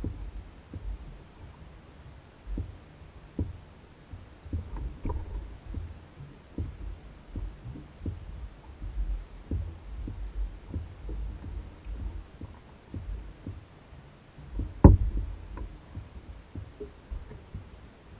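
Water slapping against a canoe hull (an Old Town Guide 119) as it bobs, giving an uneven run of low thuds and small knocks. One much sharper, louder knock comes about 15 seconds in.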